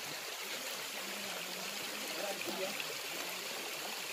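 Small waterfall spilling down a rock face into a shallow stream: a steady rush and trickle of water.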